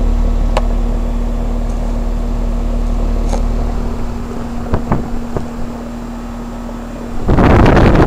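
Outdoor unit of a 1988 Heil heat pump running with a steady low hum and a held tone, with a few light clicks about five seconds in. Near the end a loud, gusty rush of air suddenly buffets the microphone.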